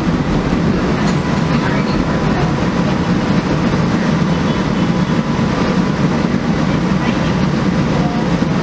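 New Orleans Canal Street streetcar running along its rails, heard from inside the car: a steady, loud rumble of wheels and running gear with a faint constant whine.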